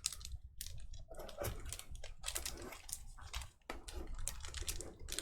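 Cardboard box and packaging being handled and opened: light, irregular clicks, taps and crinkles.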